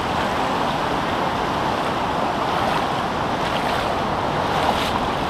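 Steady sea surf with wind noise on the microphone.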